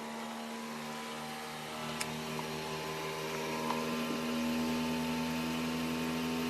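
Flashforge 3D printer running its calibration, its motors giving a steady hum of several tones that grows a little louder from about halfway through, with a small click about two seconds in.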